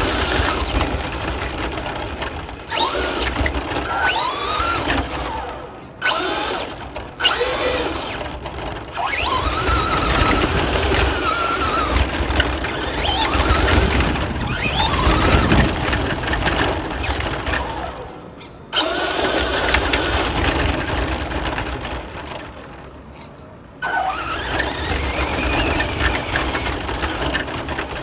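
Radio-controlled car's motor whining in repeated throttle bursts, its pitch climbing and falling with each burst and cutting out briefly between them, over the rumble of the car running across dirt and grass.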